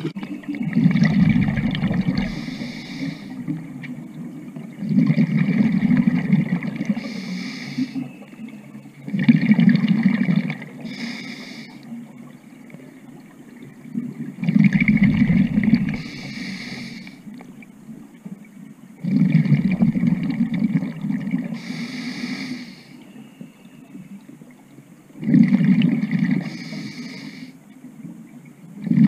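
A scuba diver breathing through a regulator underwater: six breaths, one about every four to five seconds, each a two-to-three-second rush of hissing and bubbling noise.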